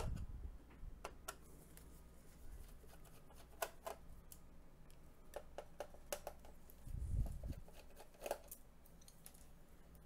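Scattered light clicks and taps of small metal and plastic parts being handled and unscrewed by hand inside an opened all-in-one computer, with a soft low thump about seven seconds in.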